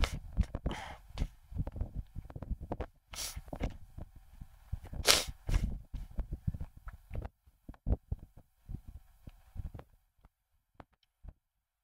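Scattered light clicks and knocks, with two short hissing rustles about three and five seconds in, thinning out near the end.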